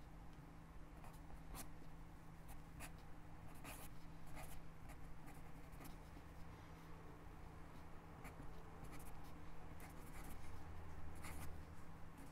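Quiet scratching of a fine pen tip on lined notebook paper, writing cursive in short irregular strokes.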